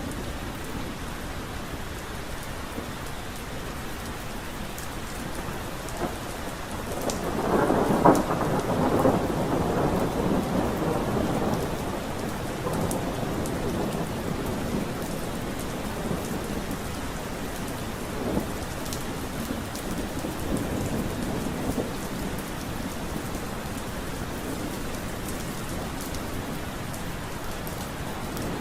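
Steady rain falling, with a roll of thunder about a quarter of the way in. The thunder builds, cracks once at its peak and rumbles away over several seconds.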